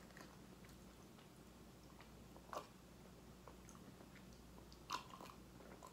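Near silence with a low room hum, broken by two short mouth sounds about two and a half and five seconds in as hot coffee is sipped from a cup.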